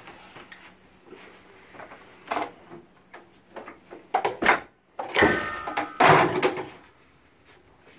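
Scattered knocks and rustling in a small room, with a loud stretch of bumps and rubbing from about five seconds in, lasting about a second and a half.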